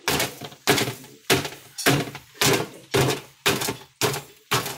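Repeated hard blows, about two a second, cracking open the hardened salt-and-cloth crust of a lomo al trapo, a beef tenderloin roasted in the coals.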